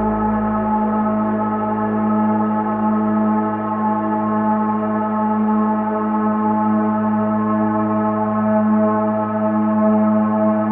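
Steady meditation drone of many sustained, gong-like ringing tones sounding together, with no new strike. A deep hum beneath them fades away about a second in.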